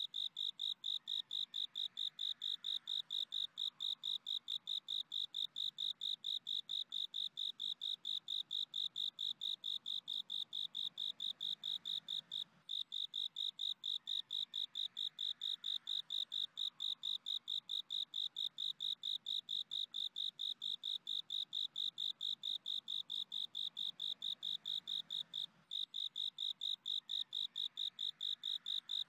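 Cricket song: a steady, high, even chirping trill in fast regular pulses, about four a second, with two brief breaks, one near the middle and one near the end.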